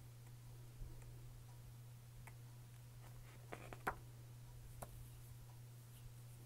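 Pages of a paper lyric booklet turned by hand: a few soft flicks and taps, the loudest cluster a little before four seconds in, over a faint low steady hum.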